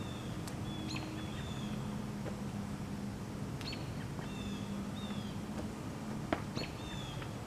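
Songbirds chirping repeatedly, short high calls that slide downward, over a steady low hum. A single sharp click comes about six seconds in.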